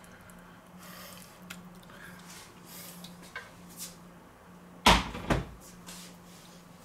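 Two knocks in a kitchen about half a second apart, the first much louder, over a steady low hum and a few faint clicks and handling sounds.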